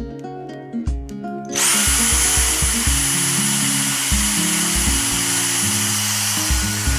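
Dyson DC74 cordless vacuum cleaner switched on about a second and a half in: its motor spins up with a high whine that rises quickly and then holds steady, along with a loud steady rush of air. Background music plays throughout.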